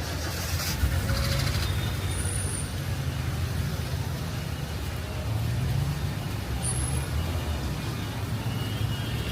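Engine of a heavy road vehicle such as a bus running close by, a steady low rumble in street traffic, with two brief high squeaks about two and seven seconds in.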